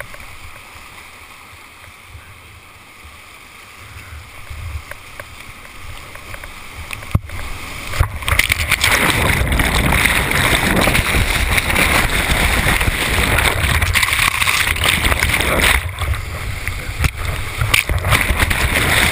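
Whitewater rushing past a kayaker's helmet camera, a steady rush that slowly grows, then a single knock about seven seconds in. From about eight seconds the sound turns to loud, dense churning water close on the microphone as the kayaker is held in a hole and the camera goes in and out of the aerated water.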